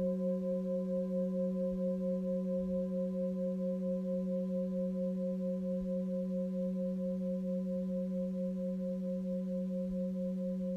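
Full moon singing bowl ringing on after being sounded: a steady low hum with several higher overtones, one of them pulsing in a fast wobble, the whole tone slowly fading.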